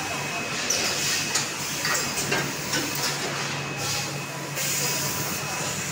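Water-bottle packaging line machinery running: a steady mechanical hum and hiss with irregular clicks and knocks. The low hum drops out near the end.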